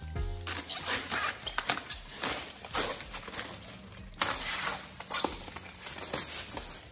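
Black plastic bin bag crinkling and rustling in irregular bursts as it is pulled off an engine block. The end of a music jingle is heard briefly at the very start.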